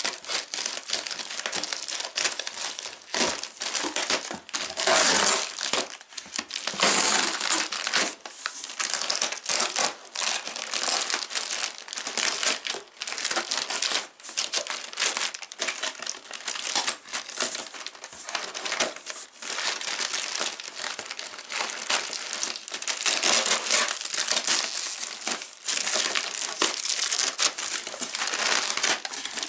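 Crinkly packing paper and plastic wrap being crumpled and pulled about by hand inside a cardboard box: a dense, continuous rustling crackle, louder in a few stretches.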